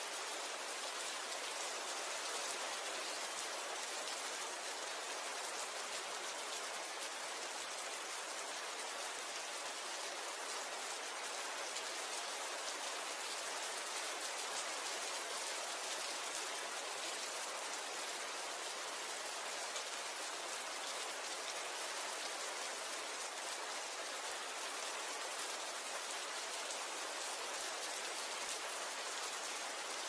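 Steady rain falling: an even hiss of many small drops, holding the same strength throughout.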